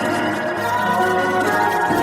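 Instrumental music without singing: layered held notes moving in a slow melody over a steady bass.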